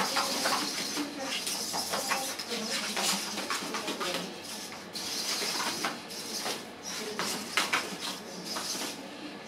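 Small humanoid robots' servo motors whirring while their metal limbs and feet clatter and knock against each other and the ring mat as they grapple, in a quick, irregular run of clicks and knocks.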